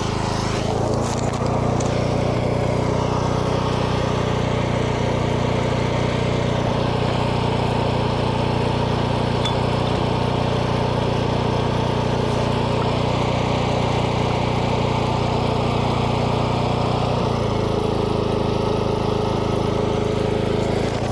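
Small petrol generator engine running steadily under load, with a constant droning note; about 17 seconds in its pitch drops slightly and the tone changes.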